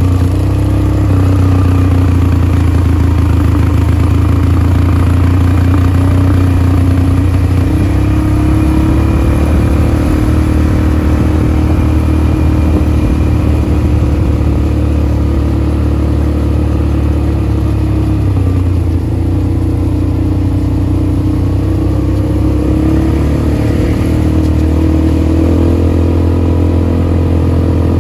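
ATV engine running while riding, its pitch rising and falling a few times with the throttle.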